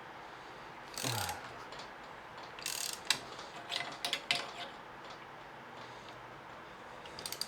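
Coil spring compressor being wound down on a motorcycle shock's spring with a spanner: intermittent metallic clicks and scrapes as the tool works the threaded rods, a few seconds apart.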